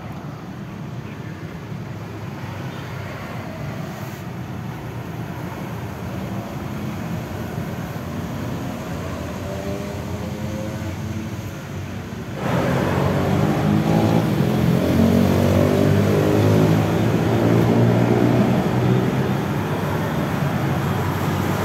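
Motor vehicle on the road: an engine's steady hum under road noise, turning abruptly louder about twelve seconds in, where the engine's tone comes to the fore.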